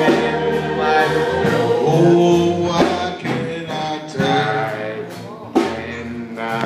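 A male gospel vocal group singing together in harmony.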